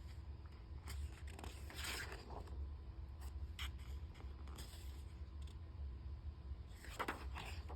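Faint, scattered scratchy rustles and scrapes, a few short ones through the first half and a couple of stronger ones near the end, over a steady low hum.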